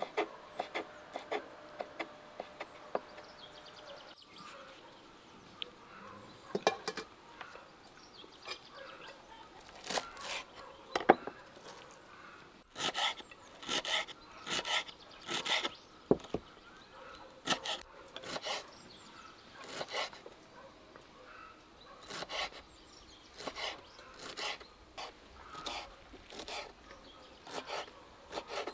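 Knife chopping green onion and dill on a wooden cutting board: an uneven run of sharp knocks that grows denser partway through.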